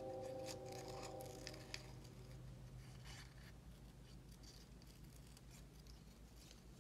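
Scissors snipping through paper in short, quiet cuts, scattered through. A faint held tone fades away over the first two seconds.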